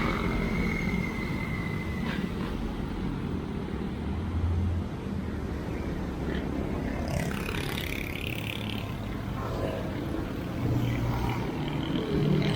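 Street ambience under a low, rough rumble of wind buffeting the microphone, with traffic noise mixed in. A faint high tone fades out about two seconds in.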